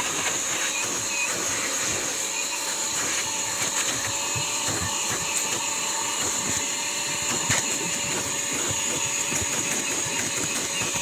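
Hyper Tough 1.5-gallon, 2-horsepower wet/dry shop vac running steadily, its motor whine over the rush of air through the nozzle, with small irregular rattles as the nozzle is worked over the car seats.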